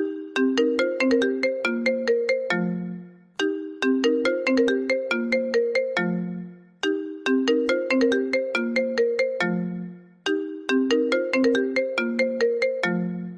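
Apple iPhone ringtone playing on loop: a short melody of quick struck notes that ends on a longer low note, repeating about every three and a half seconds.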